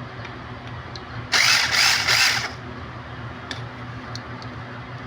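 A power screwdriver runs in three quick pulses for about a second, backing out the screws that hold a washing-machine motor's carbon brush holder.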